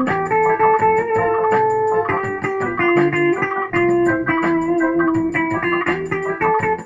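Electric guitar playing an instrumental lead line of long held, slightly wavering notes over a backing track with a steady beat.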